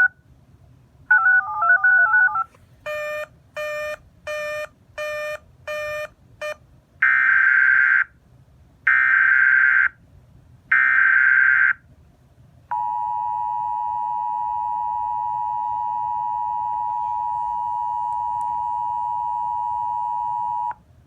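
Emergency Alert System tones. First come short runs of two-pitch electronic beeping and six brief evenly spaced beeps. Then three buzzy one-second bursts of SAME header data, each followed by a short gap, and then the EAS two-tone attention signal, held steady for about eight seconds before it cuts off.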